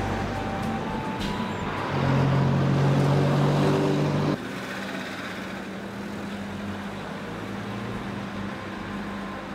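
Road traffic: vehicles, including a van and a truck, driving past with a steady engine hum that is loudest from about two to four seconds in. It then cuts off suddenly to a quieter, steady street hum.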